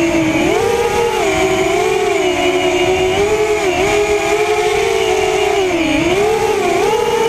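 Drone's propellers and motors whining steadily in flight, the pitch rising and falling every second or so.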